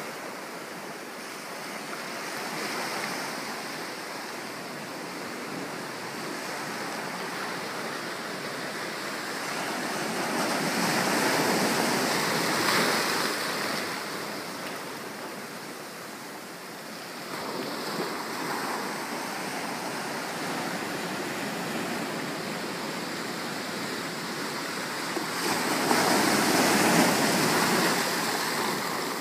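Ocean surf breaking and washing up a sandy beach in a steady rush. It swells louder twice, in the middle and again near the end, as bigger waves come in.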